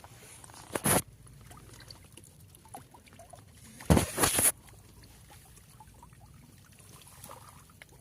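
Two short bursts of splashing water, a brief one about a second in and a longer, louder one about four seconds in.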